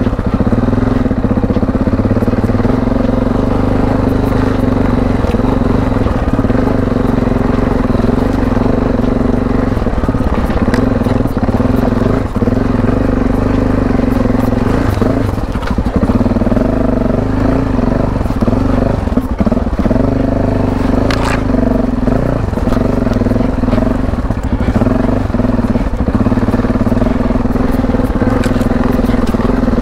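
Yamaha Ténéré adventure motorcycle engine running at low, fairly steady revs as it climbs an off-road trail, with stones crunching and crackling under the tyres. There is one sharper knock about two-thirds of the way through.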